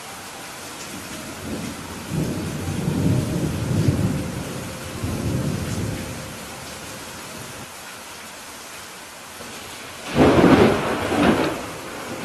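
Steady heavy rain with thunder: a low rolling rumble of thunder from a couple of seconds in, fading out over about four seconds, then a louder, sharper thunderclap about ten seconds in, with a second crack just after it.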